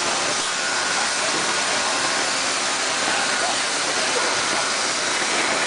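Machinery of a meat-processing line running: a steady, even wash of motor and conveyor noise with no separate knocks or strokes.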